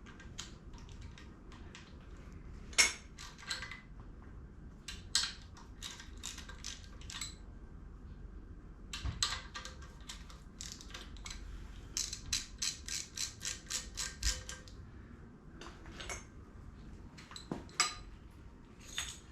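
Hand ratchet clicking as a loosened exhaust manifold bolt is backed out of an LS 5.3 engine, in short runs with a steady stretch of about five clicks a second a little past the middle, and a few louder metal clanks of the tools.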